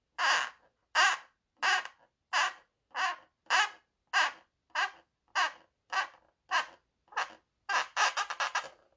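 Paint pen squeaking on latex balloons as it is drawn across in short strokes, about a dozen rasps evenly spaced a little over half a second apart, then a quicker run of short squeaks near the end.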